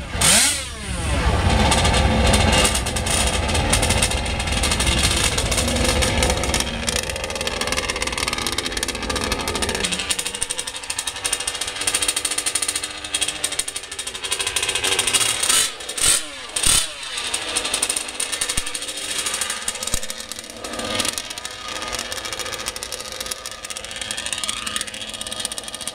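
Small model engines of an RC mini pulling tractor running at high speed. A deep rumble drops away about ten seconds in, leaving a thinner, buzzing engine note that swells a few times.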